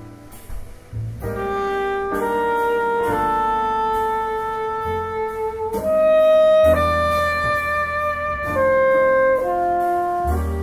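Live jazz quartet: an alto saxophone comes in about a second in and plays a slow melody of long held notes over piano, upright bass and drums with cymbal strokes.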